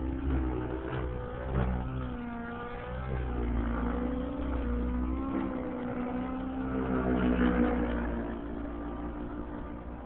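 Align T-Rex 700 nitro R/C helicopter's .90-size glow engine and rotor running hard in 3D flight, the pitch rising and falling again and again as it manoeuvres. It is loudest about three quarters of the way through.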